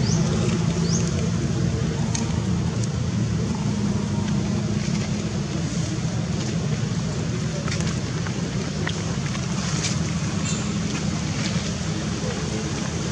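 An engine running steadily at idle close by, a low, even hum.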